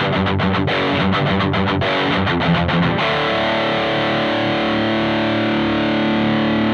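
Heavily distorted electric guitar through a speaker cabinet, miked with a Shure SM57 straight at the dust cap edge and a Behringer SL75C angled at the cone. It plays a fast riff of short picked notes, then about three seconds in a chord is struck and left ringing.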